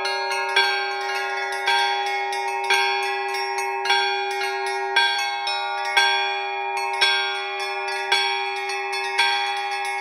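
Russian Orthodox church bell ringing (zvon) on a small frame-mounted set of bells rung by clapper ropes: a steady rhythm with a heavier stroke about once a second over quicker strokes on the smaller bells, and a lasting hum beneath.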